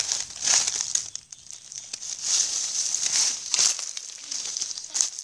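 Dry leaf litter rustling and crackling in a run of separate crinkly bursts, as the ground where a jackfruit lies is stirred.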